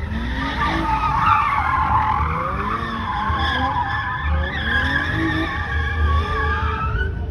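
Car tyres squealing without a break as the car drifts and spins its wheels. Underneath, the engine revs in repeated rising sweeps over a steady low rumble.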